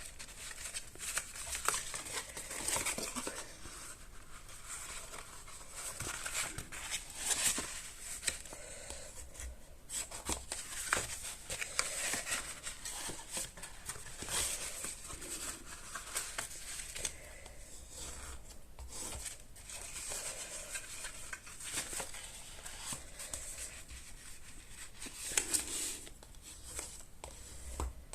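Cardstock being folded along its scored diagonal lines and the folds pressed and burnished: papery rustling and scraping with scattered sharp taps.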